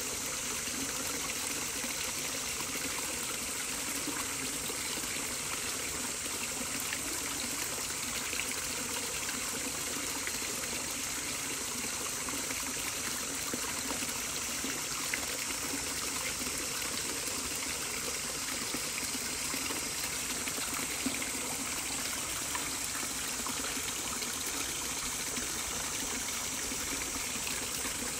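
Running water of a stream, a steady, even flow.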